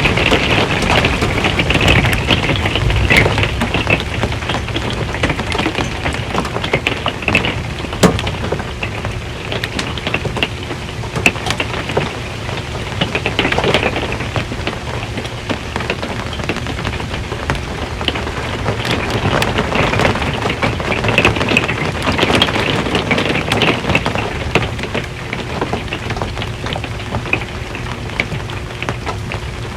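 Steady rain falling on a metal RV roof: a dense, continuous patter of drops with many small sharp ticks, one louder tick about eight seconds in.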